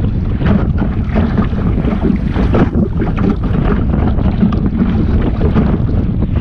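Wind buffeting the microphone of a small sailing dinghy under way, with water rushing and splashing against the hull in irregular bursts over a steady low rumble.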